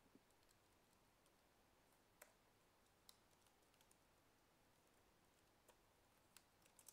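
Near silence, with a few faint, scattered computer keyboard keystrokes.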